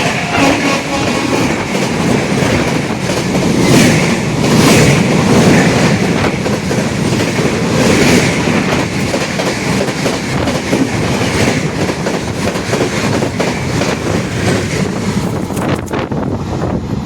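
Indian Railways express train passing at speed: a steady rush of coaches and wheels with rhythmic clatter over the rail joints, swelling a few times as bogies go by. The tail of the locomotive's horn fades out in the first second.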